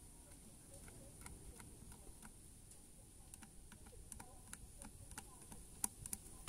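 Faint, irregular small clicks and ticks of a hacksaw blade working against the rim of a plastic bucket, with one sharper click near the end.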